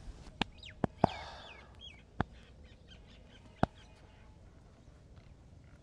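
Five sharp joint cracks, unevenly spaced over about three seconds, the loudest about a second in, from a head and neck massage. Birds chirp in the background for the first two seconds.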